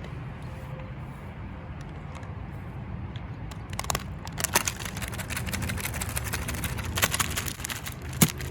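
A paintbrush being scrubbed and rubbed against something outdoors makes rapid crackling and rustling that starts a few seconds in, over a steady low rumble. A sharp knock comes near the end as the brush is beaten clean.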